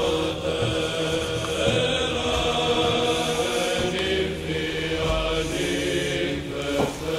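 Background music of voices chanting a slow hymn in long held notes.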